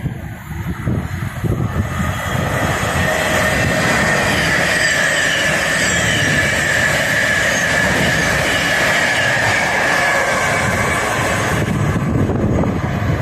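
Thameslink Class 700 electric multiple unit passing non-stop at speed: a steady rushing clatter of wheels on rail with a high whine that slowly falls in pitch. Near the end it gives way to wind on the microphone.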